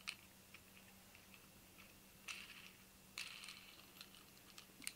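Faint small clicks and light scraping of steel hardware handled by hand: a washer and steel cross dowel being fitted onto threaded rod with a nylon lock knob. There are two short scrapes about two and three seconds in.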